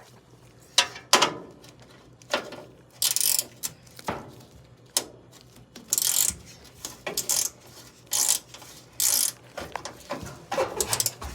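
Hand ratchet clicking in short, irregular strokes, about one a second, as screws on a furnace inducer motor are turned.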